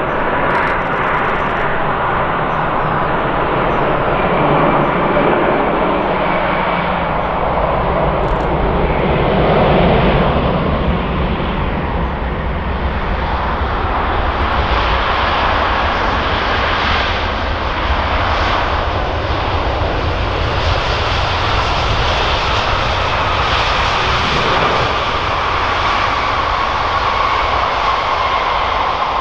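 Airbus A350-900 airliner with twin Rolls-Royce Trent XWB engines, rolling out on the runway just after touchdown: a loud, steady rush of jet engine noise. A whine near the top of the noise falls slowly in pitch over the last several seconds.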